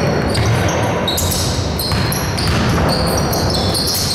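Live basketball game in a sports hall: a ball bouncing on the court and short, high sneaker squeaks over a steady crowd din.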